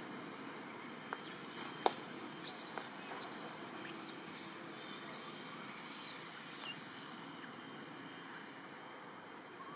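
Outdoor forest background: a steady hiss with faint, short high chirps scattered through it and a few sharp clicks, the loudest of them about two seconds in.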